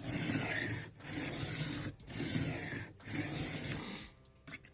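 Knife blade being drawn across an 800-grit diamond sharpening plate: four even scraping strokes, about one a second, as the edge is reprofiled.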